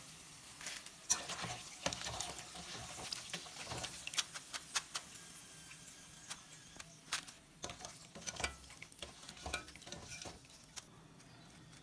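Wire spider strainer clinking against a steel kadai and crisp fried nendran banana chips rattling as they are scooped out of the oil, in scattered irregular clicks over a faint sizzle. The oil's bubbling has died down and the chips make a crisp rattle, the sign that they are fully fried.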